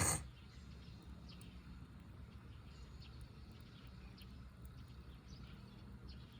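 Wood fire in a fire pit crackling faintly with scattered irregular ticks, after a short, sharp burst of noise right at the start.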